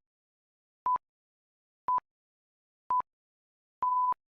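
Electronic workout interval-timer beeps: three short, high, pure beeps a second apart, then one longer beep near the end. The longer beep marks the end of the countdown and the switch to the next exercise.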